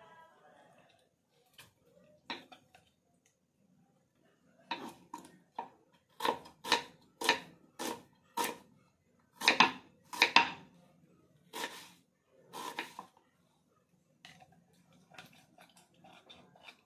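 Kitchen knife chopping onion on a wooden chopping board: sharp knocks of the blade hitting the board, a couple at first, then an irregular run of about one to two a second starting about five seconds in, fading to lighter taps near the end.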